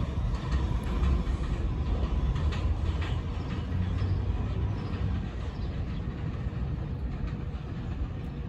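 Subway train running away along elevated track, a steady low rumble of wheels on rail with a few clicks early on, slowly fading as it moves off.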